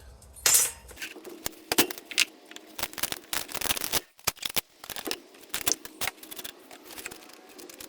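Small aluminum pieces and metal parts of an electric organ's sound box clicking, knocking and clattering as they are handled and pried loose, in a quick irregular series of sharp clicks.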